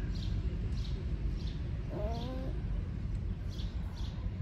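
Small birds chirping over and over, a short high chirp every half second or so, over a low steady rumble. About two seconds in, a brief wavering pitched sound rises and falls.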